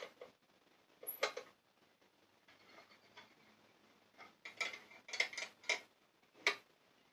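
Scattered light metal clinks and taps of tools and parts being handled, the busiest stretch about four to six seconds in.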